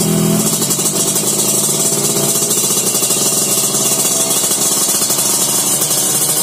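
Yamaha RX-King's single-cylinder two-stroke engine idling steadily through a YKJ Racing aftermarket exhaust, a fast, even run of exhaust pulses.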